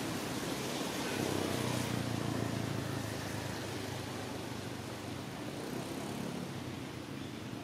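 Steady outdoor hiss with a low hum that swells about a second in and fades after about six seconds, like a distant motor.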